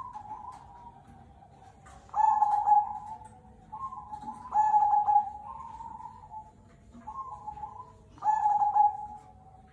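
Zebra dove (perkutut) cooing: repeated rolling phrases, with three loud ones about 2, 4.5 and 8 seconds in and softer phrases between them.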